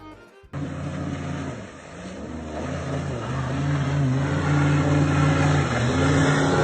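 A boat's motor running over rushing noise. It eases off around two seconds in, then rises in pitch and gets louder as the boat speeds up, and holds steady near the end.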